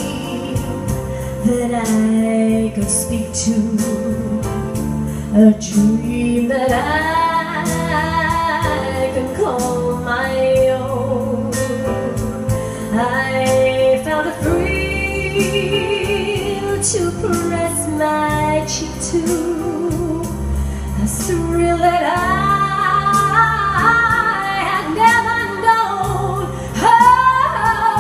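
A woman singing live into a handheld microphone over backing music with a bass line and a steady beat, holding long notes with vibrato.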